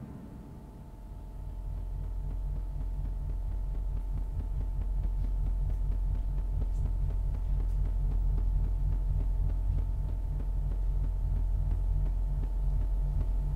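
Low, steady, throbbing hum that builds up about a second in as the last drum stroke dies away, then holds.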